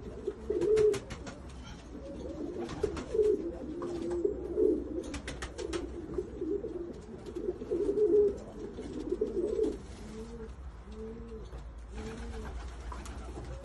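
Serbian highflyer pigeons cooing, several birds overlapping for most of the time, then three separate rising-and-falling coos about ten seconds in. Scattered sharp clicks sound throughout.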